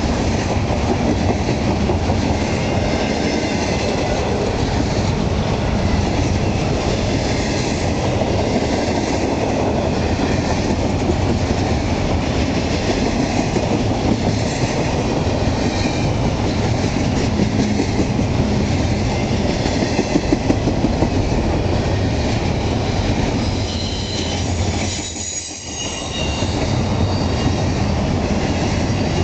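Double-stack intermodal container well cars rolling past at speed: a steady rumble of steel wheels on rail, with clickety-clack over the joints and thin high wheel squeal. The noise dips briefly about 25 seconds in.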